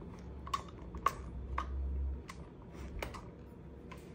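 Irregular sharp clicks and light knocks of parts of an Army Armament R905 Steyr AUG A3 airsoft gun being slid and pressed together by hand, with a brief low rumble of handling in the middle.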